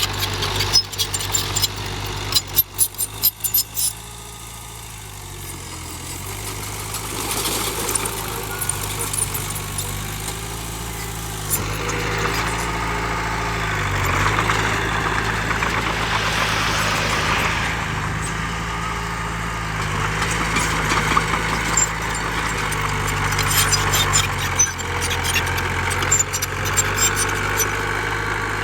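Heavy diesel engine of earthmoving machinery running steadily, its tone shifting in steps. Bursts of sharp clattering come in the first few seconds and again near the end.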